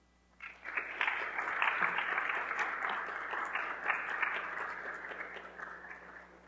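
Audience applauding: the clapping starts about half a second in, builds quickly, and then tapers away near the end.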